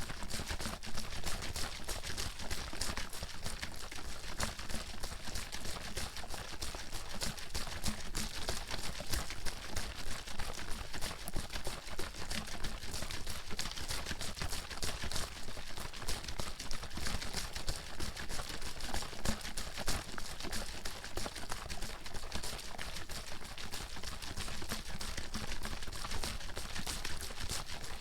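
Water sloshing in a bottle being shaken hard and without pause, a dense, even run of quick splashes and knocks.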